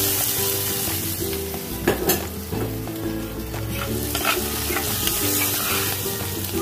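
Tempering of dried red chillies, shallots and curry leaves sizzling in hot oil in a clay kadai while a steel ladle stirs and scoops through it, with a few sharp scrapes about two seconds in.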